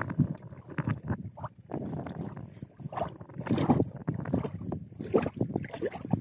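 Choppy lake water lapping and sloshing close by in uneven surges, with wind buffeting the microphone.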